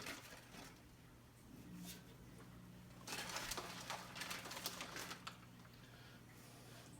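Light clicking and rustling of hands handling and arranging raw floured chicken pieces, strongest partway through, over a faint steady low hum.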